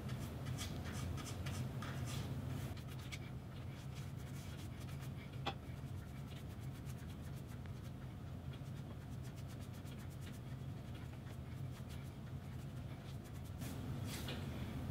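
Paintbrush stroking polyurethane onto a wooden cabinet door: faint, scratchy brushing of bristles along the wood. There is a single light tap about five and a half seconds in, and a low steady hum underneath.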